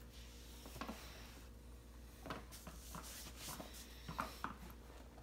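Faint, scattered rustling and small clicks of guinea pigs moving and scrabbling in the bedding and hay of their cage.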